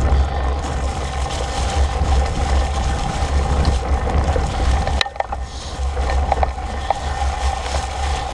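Fat-bike tyres rolling over dry leaves and a dirt trail, with wind rumbling on the bike-mounted camera's microphone and rattles from the bike. About five seconds in, the wind rumble drops and a few sharp clicks follow.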